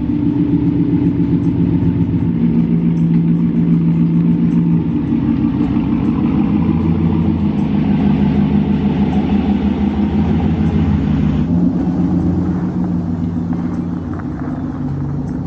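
A 2019 Ram Rebel pickup truck's engine running steadily as the truck pulls away at low speed.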